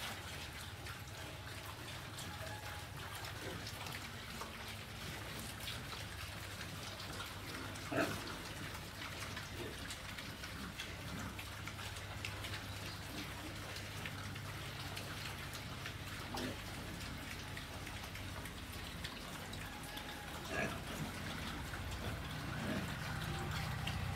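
A herd of pigs eating chopped green vegetables: a steady patter of crunching and chewing, with a few louder knocks about eight, sixteen and twenty seconds in, over a low steady hum.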